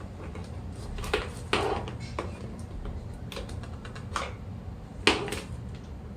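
Irregular plastic clicks and knocks as the parts of a steam mop are handled and fitted together, about six or seven in all, the sharpest about five seconds in.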